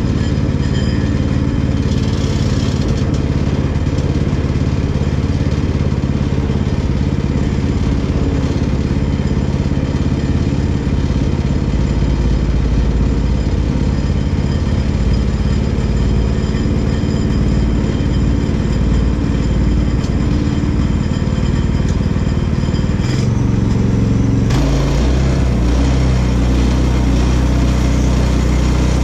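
Portable bandsaw sawmill's gas engine running steadily. Its sound shifts about 23 to 25 seconds in.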